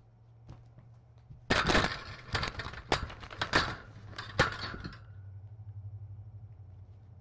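Loud crackling, scraping and knocking for about three and a half seconds, starting about a second and a half in: a kitten pawing and rubbing against the webcam right at its microphone.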